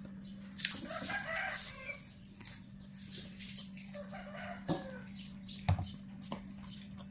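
Instant noodles being slurped and chewed off chopsticks, with a chicken clucking in the background and a single sharp knock on the table near the end, over a faint steady hum.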